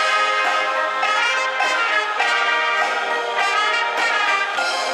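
Wind band playing a piece together, with trumpets and other brass to the fore over clarinets and saxophones, in sustained chords that change every half second or so.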